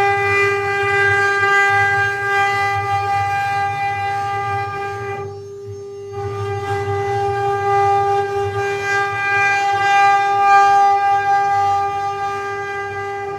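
Mini CNC engraving machine running, its spindle giving a steady high whine over a low hum; about five and a half seconds in the whine dips for under a second and then comes back.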